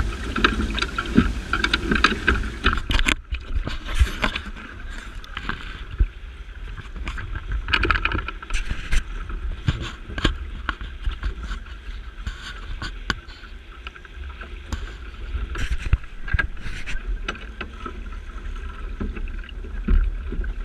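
Wind buffeting the microphone and water rushing along a sailing yacht's hull, with scattered knocks and taps.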